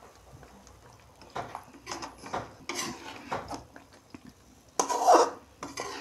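Metal ladle stirring and scraping through thick chicken masala in a metal pot, in several uneven strokes with the loudest about five seconds in, as the cooked chicken is fried down (bhuna) in its gravy.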